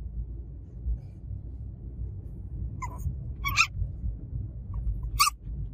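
Lhasa Apso puppy whimpering in three short high-pitched cries in the second half, over the low rumble of a car in motion.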